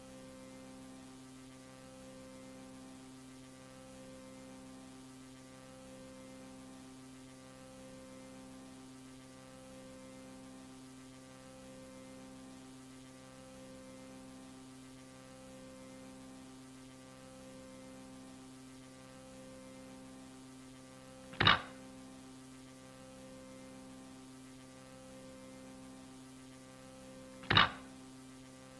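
Steady electrical hum of an analog-horror soundtrack, several tones at once with one of them pulsing slowly, about once a second. It is broken twice near the end by a short, loud, sharp burst, about six seconds apart; the second comes just as a security-camera photo appears.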